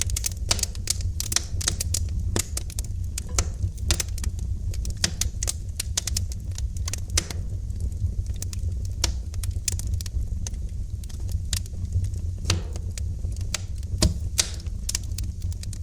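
Wood fire crackling in a fireplace: irregular sharp pops and snaps over a steady low rumble, with one of the louder pops near the end.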